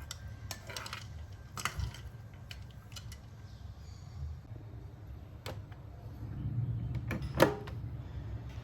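Scattered light clicks and knocks over a low steady hum, the sharpest knock about seven and a half seconds in.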